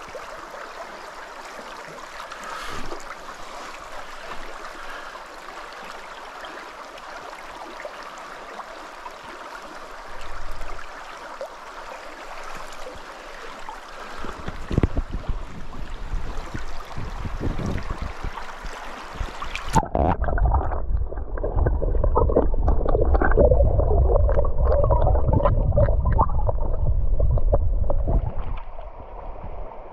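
Shallow, clear river riffle running steadily over gravel, then irregular splashing and knocking as a brown trout is held in the current for release. About twenty seconds in, the sound turns abruptly muffled and rumbling as the microphone goes underwater, with water gurgling and sloshing against it.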